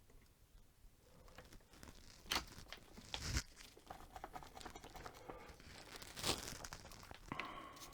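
Small handling sounds at a workbench: scattered rustling and scraping with a few sharp clicks, the loudest about two and a half, three and a half and six seconds in, as a headphone cable, plug parts and small tools are handled.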